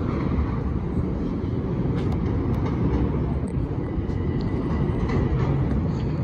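Long Island Rail Road train approaching along elevated track from a distance: a steady low rumble that grows slightly louder, with a few faint ticks and a faint high whine in the second half.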